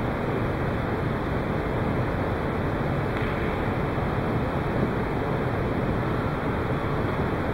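Steady, even background hiss of the hall's room tone, with no ball strikes.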